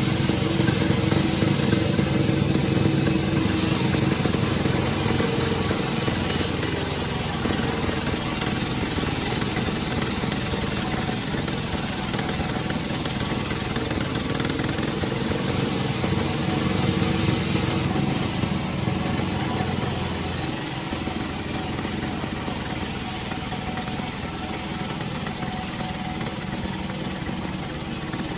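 Sawmill machinery running steadily with an engine hum, slightly louder in the first few seconds.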